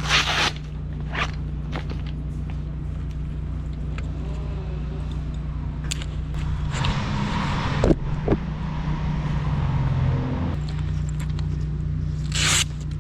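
An engine running steadily at idle, with short hissing scrapes near the start and end and a louder rushing noise over it for a few seconds in the middle.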